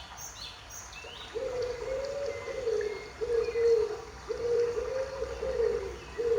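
A dove cooing: four low, soft, hooting notes in a long, short, long, short pattern, starting about a second in. Small birds chirp faintly.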